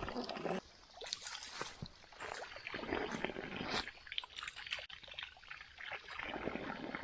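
Water splashing and trickling in irregular short bursts.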